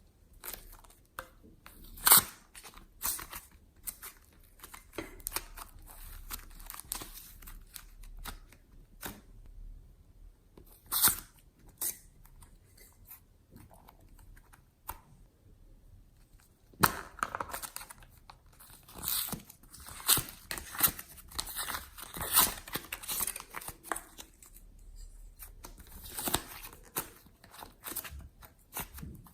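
Glossy slime being squished, stretched and folded by hand as clay is mixed in, giving irregular sticky clicks and crackles. They come in scattered bursts, busier in the second half.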